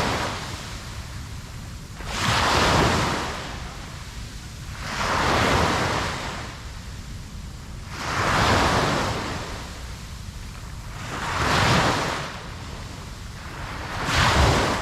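Ocean waves breaking and washing on a beach, the surf swelling and fading in an even rhythm about every three seconds, five times.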